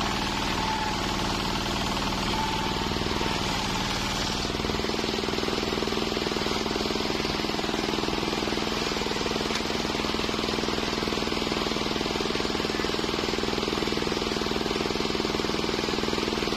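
Engine-powered homemade circular sawmill running steadily. Its note shifts about four and a half seconds in and then holds even.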